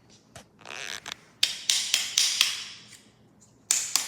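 Hard plastic parts of a robot vacuum being handled and knocked: a quick run of sharp clicks and knocks, each trailing off, and another near the end.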